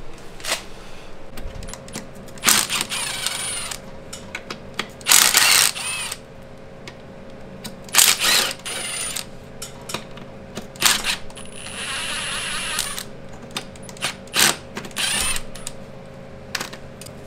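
Metal hand tools clinking, knocking and scraping against motorcycle engine parts while a stuck part is worked loose: scattered sharp clicks and knocks, with a longer scraping stretch about five seconds in and another near twelve seconds.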